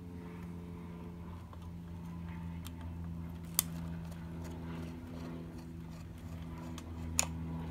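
A steady low hum with two sharp clicks, one near the middle and one near the end.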